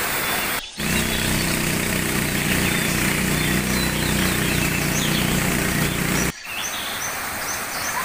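Waterfall rushing with birds chirping, broken by two brief dropouts. Between the dropouts, for about five and a half seconds, a steady low rumble takes over, with birds still chirping above it.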